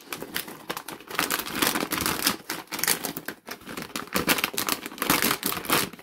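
A plastic bag crinkling as small glow-in-the-dark pebbles are shaken out of it, clicking and rattling quickly into a small pot.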